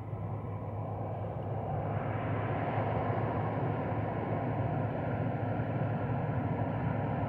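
ST48 diesel locomotive hauling a freight train, its engine running with a steady low drone that grows louder as it approaches.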